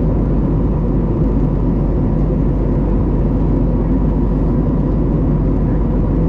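Steady cabin noise of an Airbus A321neo in the climb: the Pratt & Whitney PW1100G geared turbofans running at climb power under a dense rush of airflow, with a faint steady tone above it.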